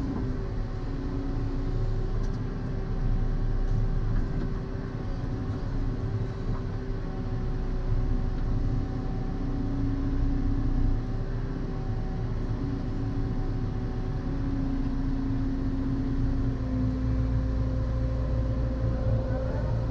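Volvo hydraulic excavator running, heard from inside the cab: a steady diesel drone with a tonal hydraulic hum whose pitch and strength shift from time to time as the arm and bucket scoop reeds out of the ditch.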